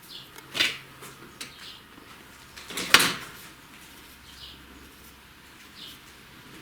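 A few sharp knocks and clunks, the strongest about half a second in and about three seconds in, like hard objects being set down or handled.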